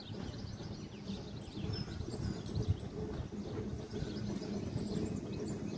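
A narrow-gauge steam locomotive approaching slowly in the distance, a low rumble that grows slightly louder, with birds chirping throughout.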